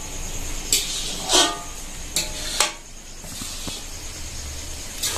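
Metal cookware clanking four times, one knock ringing on. Then a metal spatula stirring chopped vegetables frying in a large aluminium kadai, with a steady light sizzle.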